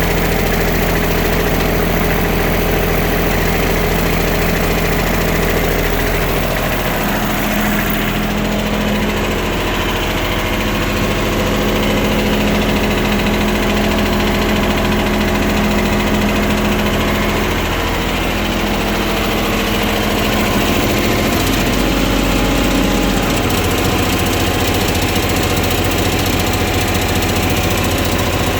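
Bobcat 553 skid steer's diesel engine running steadily, its speed changing about a quarter of the way in and again about three quarters of the way in.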